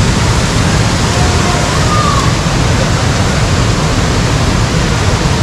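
Loud, steady rush of a tropical waterfall, with faint distant voices about a second in.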